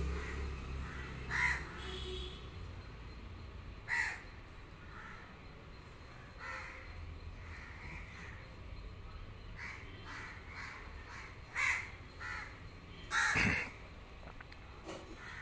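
Short, harsh animal calls repeated irregularly every second or two, with the loudest and longest near the end.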